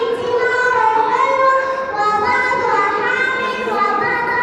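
A young girl singing, her voice holding notes and stepping between pitches.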